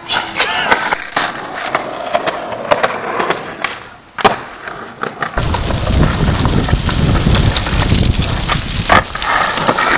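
Skateboard on street asphalt: wheels rolling with several sharp clacks of the board hitting the pavement. About five seconds in, a louder, rougher low rumble takes over.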